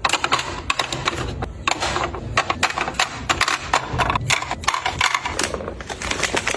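Quick, irregular clicks and taps of small items being handled and set down, one after another.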